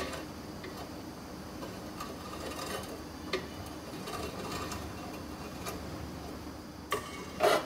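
Empty nonstick wok heating on the stove while it is tilted around by its handle: quiet, with a faint steady hum and scattered light ticks and scrapes. Two short knocks come near the end, the second louder.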